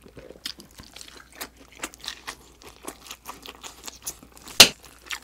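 Close-miked mouth sounds of a person chewing a dumpling: a string of small wet clicks and smacks, with one louder smack about four and a half seconds in.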